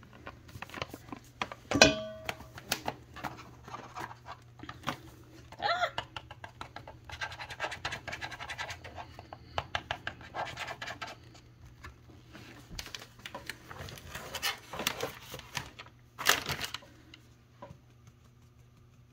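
Paper bag of potato starch rustling and crinkling while a measuring cup scoops and scrapes the starch, with scattered light clicks and taps. A sharp knock with a short ring about two seconds in, and another louder rustle-scrape about sixteen seconds in.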